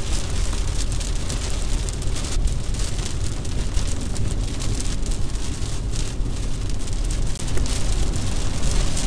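Heavy rain pattering on a moving car's windscreen and roof, heard from inside the cabin over a steady low rumble of road and engine noise.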